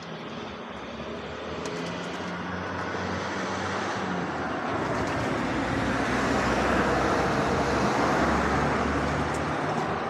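A motor vehicle passing, its engine and road noise swelling steadily to a peak about seven or eight seconds in and fading near the end.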